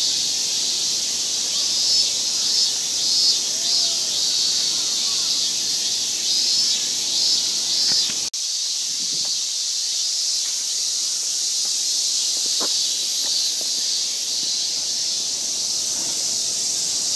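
A chorus of cicadas drones steadily in the trees, high-pitched and continuous, with a brief drop-out about eight seconds in.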